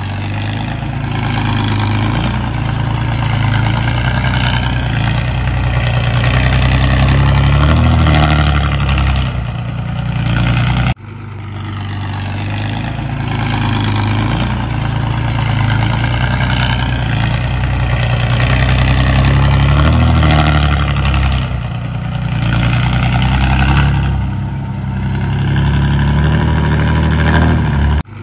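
Heavy earthmoving machinery's diesel engine running under load, its pitch rising and falling now and then. The sound breaks off abruptly about eleven seconds in and picks up again.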